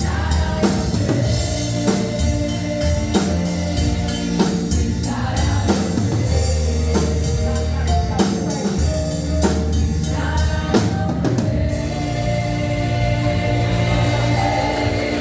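Live gospel music from a church band: a drum kit keeps a steady beat under bass and keyboard, with singing. About three-quarters of the way through the drums stop, leaving held chords.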